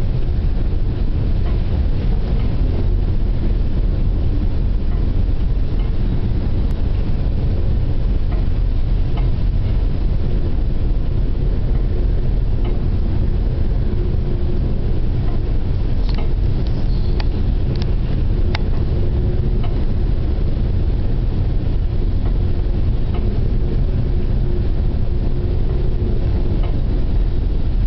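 Steady low drone of a stern trawler's engine running underway in heavy seas, with a few sharp clicks a little past the middle.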